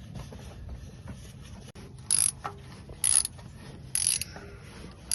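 Hand socket ratchet clicking in four short bursts about a second apart, working loose a part too tight to turn by hand during an oil change.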